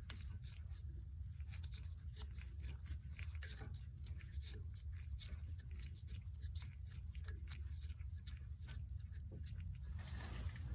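Brake caliper piston compression tool being screwed in by hand, pushing the piston back into the caliper. It makes faint, irregular small clicks and scrapes over a steady low hum.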